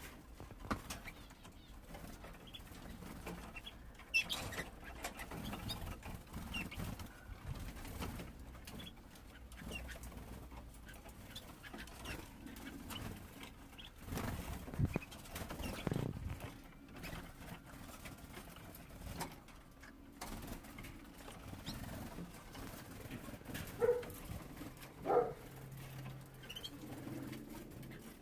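Young canaries moving about a cage: wing flutters, rustling and pecking taps, with short high chirps here and there and a couple of louder calls near the end.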